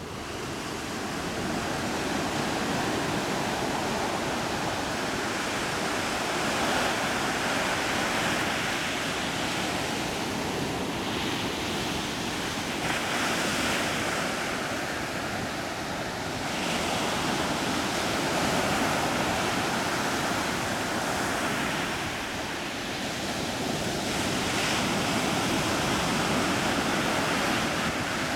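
Sea surf and wind: a steady wash of waves that swells and eases every several seconds.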